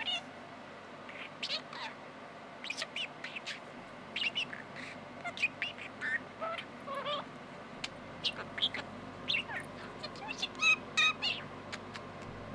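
Pet budgerigar chattering and warbling: a rapid, irregular string of short chirps, clicks and squeaky notes.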